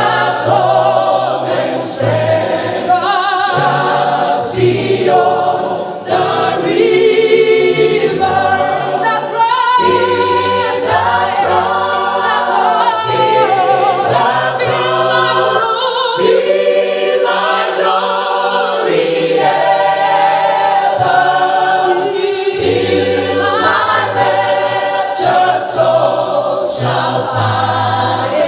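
A choir singing a hymn in parts, with no instruments.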